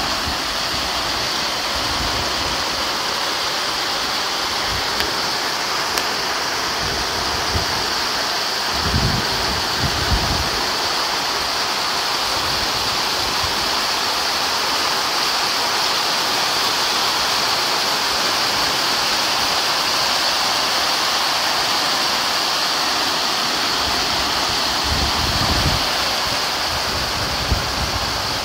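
Heavy rain falling steadily, a constant even hiss, with a few brief low buffets of wind on the microphone around ten seconds in and again near twenty-five seconds.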